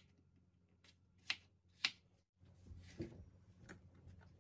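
Faint sound of a kitchen knife cutting bell pepper on a wooden cutting board: two sharp taps of the blade on the board about half a second apart. Then soft rustling and light knocks as the cut pepper pieces are scooped by hand into a bowl.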